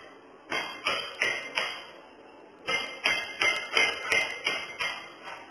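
Stones being struck, sharp knocks each ringing briefly: a run of four evenly paced strikes, a pause of about a second, then seven more at the same pace of about three a second.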